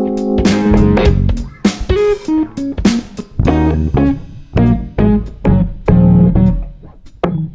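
Background music: a lo-fi track with plucked guitar, bass and a steady beat.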